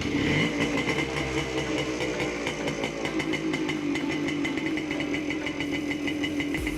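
Yamaha RS 100's single-cylinder two-stroke engine running, its revs dropping over the first few seconds and then holding at a steady idle.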